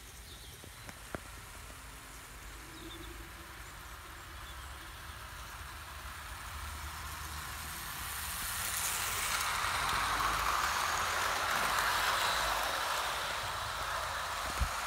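Model train, a BR 2-8-0 locomotive hauling eight coaches, running along garden railway track: the rushing rattle of its wheels on the rails and its motor grows louder as the train comes closer, is loudest about two-thirds through, then eases slightly.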